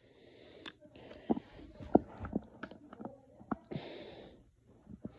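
LEGO pieces being handled: irregular small clicks and knocks, the sharpest about two seconds in and again at three and a half, with a few short bursts of rustling.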